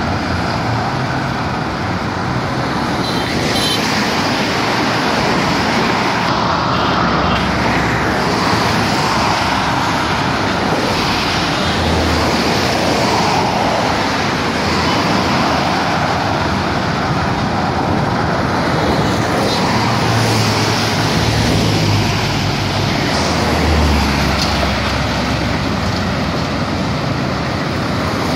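Steady road traffic noise from driving along a busy multi-lane road: tyre and engine rumble of the moving vehicle and the cars around it.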